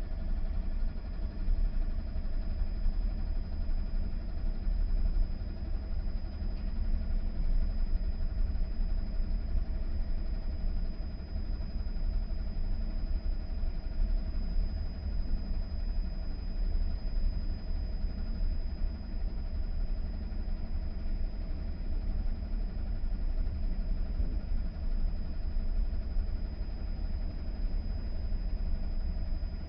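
AEG tumble dryer running with one bedsheet tumbling in the drum: a steady, a-bit-loud hum of motor and drum, with a thin high whine held over it.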